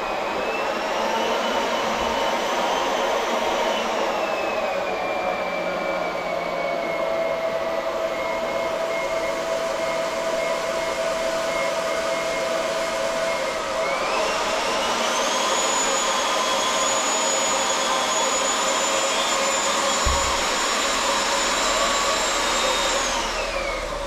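Old water heater tank draining fast: a steady rush of water and air with a whistling tone that drifts in pitch, jumps higher about two-thirds of the way through, then falls away and stops as the tank runs empty.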